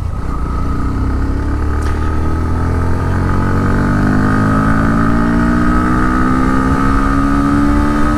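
Bajaj Pulsar NS160's 160 cc single-cylinder engine accelerating hard through one gear, its revs climbing slowly and evenly the whole time with no sudden surge. This is the linear power delivery the rider describes, without a strong pull.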